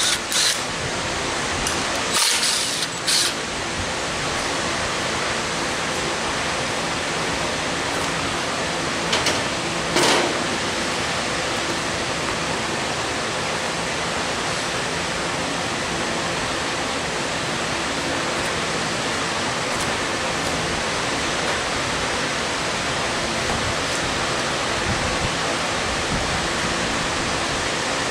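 A steady, even hiss with a handful of short sharp clicks and clinks in the first ten seconds: hand tools working on a Ford 351 Windsor V8 during a teardown.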